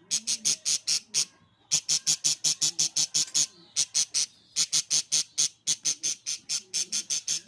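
Small pet bird chirping rapidly, short high chirps about five a second in runs broken by brief pauses.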